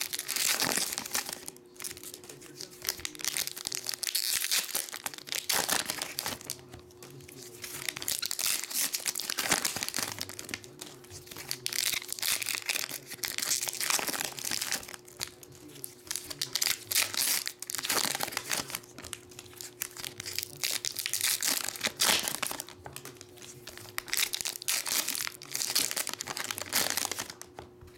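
Foil Pokémon booster pack wrappers being torn open and crinkled by hand, one pack after another, in repeated bursts of crackling, over a faint steady hum.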